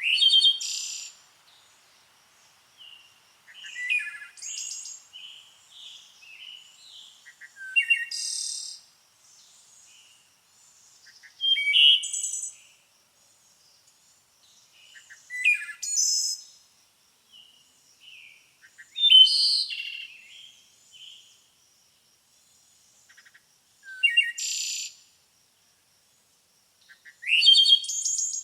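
Songbird singing: short phrases of high chirps and trills, one every three to four seconds, with quiet gaps between them.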